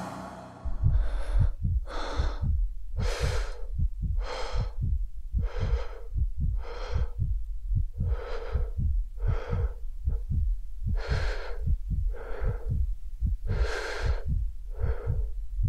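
A person breathing hard and rhythmically from exertion, about one loud breath a second, over a quicker steady series of short low thumps.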